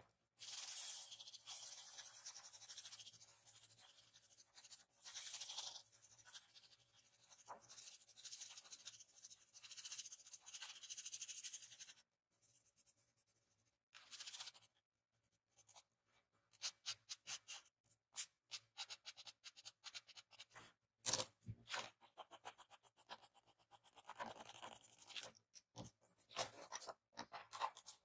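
A drawing tool rubbing and scratching on paper while shading a graphite drawing. It is a dry, continuous rub for about the first twelve seconds, then turns into many short, quick strokes.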